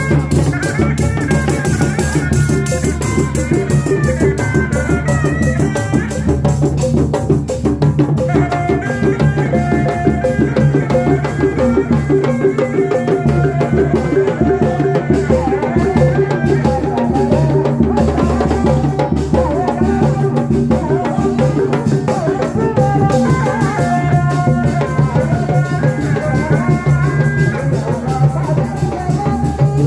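Live Sundanese reak ensemble music: drums and small gongs beaten with wooden mallets in a steady dense rhythm, with a high melody line running over it.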